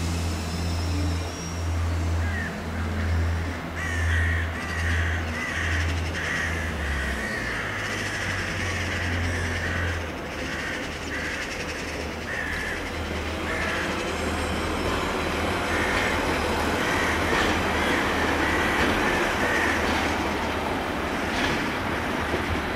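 Diesel trains running at low speed: a deep, throbbing diesel engine rumble from a multiple unit that stops about ten seconds in, while a Hitachi class 800 bi-mode train comes in slowly on diesel power and its running noise builds over the second half. Short runs of repeated high-pitched sounds come over the top twice.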